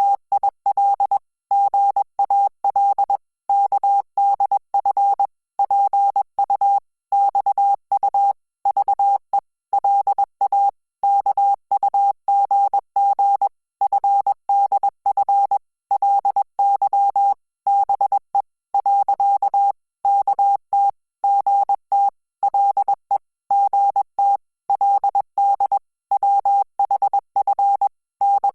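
Morse code tone: a single steady beep keyed on and off in short dots and longer dashes at about 20 words per minute, spelling out Korean Hangul text.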